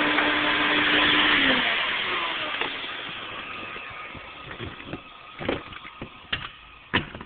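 Hoover Portable 2260 vacuum cleaner motor running with a steady hum and rush of air, switched off about a second and a half in and winding down over several seconds. A few sharp knocks come near the end.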